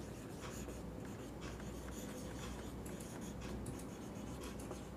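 Whiteboard marker writing on a whiteboard: a run of short, faint strokes as words are written.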